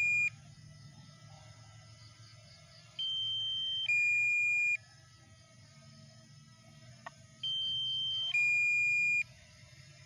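Low-battery alarm of a DJI Mini 2 drone, warning to return home promptly. It is a two-note beep, a higher tone dropping to a lower one, each held about a second. One pair ends just at the start and it sounds twice more, about four and a half seconds apart.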